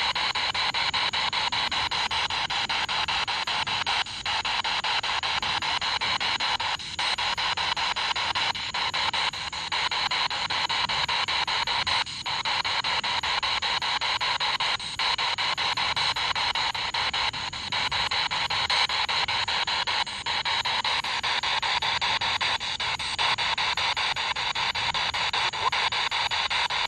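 Ghost-hunting spirit box, a radio scanner sweeping through stations, giving a steady loud hiss of static with brief dropouts every second or few as it jumps between frequencies.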